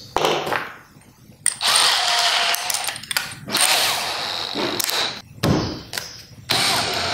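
Stanley SBH201D2K 18 V brushless cordless drill/driver running in short bursts as it drives a wood screw into a pine board without a pilot hole.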